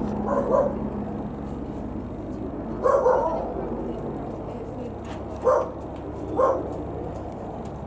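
AgustaWestland AW119 Koala helicopter flying past with a steady rotor and engine drone. A dog barks over it four times, the barks louder than the helicopter.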